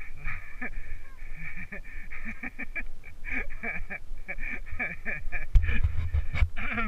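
Rhythmic creaking of a leather saddle and tack in time with a walking horse's steps, with a few louder thumps about five and a half seconds in.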